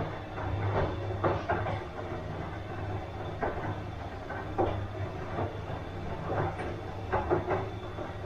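Bosch washing machine running: a steady low hum with irregular knocks and swishes from the turning drum.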